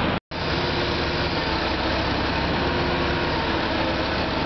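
Engine of an MSHU-4 rail-mounted tie renewal machine running steadily at idle. There is a split-second gap of silence just after the start.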